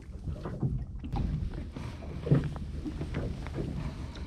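Small fishing boat on the water: a steady low rumble with scattered knocks against the hull and gear, and one louder thump about two seconds in.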